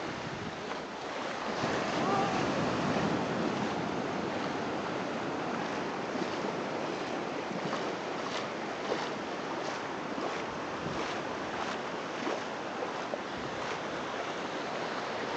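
Surf washing onto a sandy beach, a steady rush of breaking waves that swells a little louder about two seconds in.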